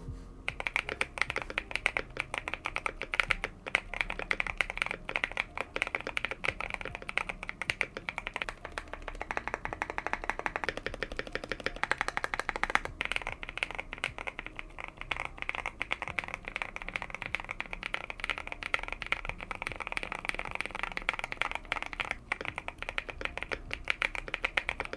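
Continuous fast typing on a modded Epomaker TK68 stacked-acrylic, gasket-mount mechanical keyboard fitted with hand-lubed Tecsee Coral tactile switches: a dense, unbroken stream of keystroke clacks.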